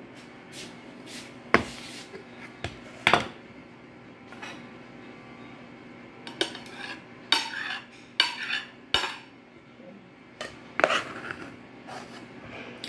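A metal spoon scraping and clinking against a pot while food is served onto a plate, with several sharp clanks of pots and lids being handled. The sharpest clanks come in the first few seconds, and a run of scrapes follows in the middle.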